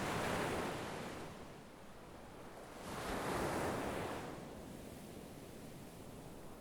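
Sea waves washing ashore: one surge at the start and a second about three seconds in, each falling back to a softer hiss.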